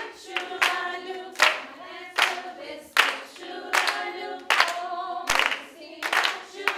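A group of women singing a song together while clapping hands on a steady beat, about one clap every three quarters of a second.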